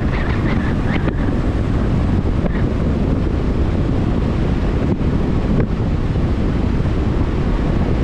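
Steady wind buffeting the microphone: a loud, even low rumble with no let-up.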